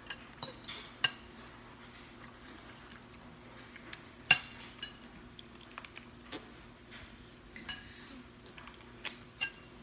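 Scattered sharp clinks of metal forks against the noodle dishes, some with a short ring, the loudest about four seconds in and another near eight seconds.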